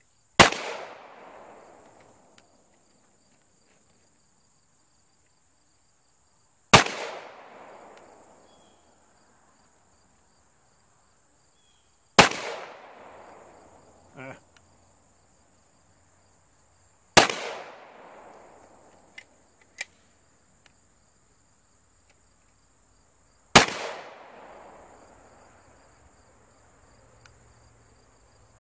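CZ Shadow 2 9mm pistol fired five times, slow aimed single shots about five to six seconds apart, each with an echoing tail that fades over a second or two. Crickets chirp steadily in the background.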